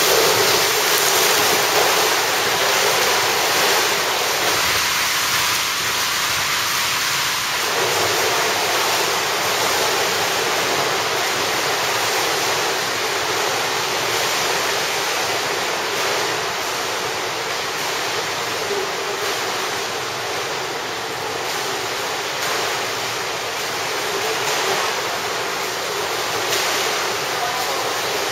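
Continuous splashing and churning of pool water from swimmers kicking and stroking freestyle, a steady wash of noise with no breaks.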